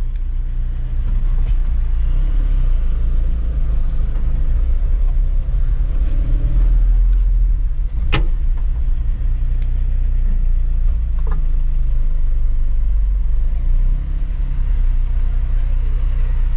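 Mitsubishi L300 Euro 4 pickup's common-rail turbo-intercooled diesel engine running steadily, swelling a little about six seconds in. A single sharp click comes about eight seconds in.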